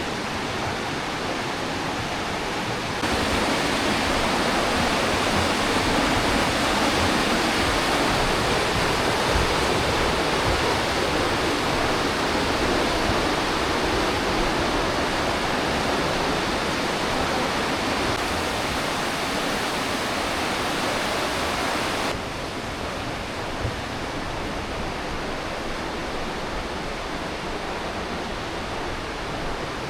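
The Aare River rushing through a narrow rock gorge, a steady roar of water. It gets abruptly louder about three seconds in and drops back just as abruptly a little after twenty seconds.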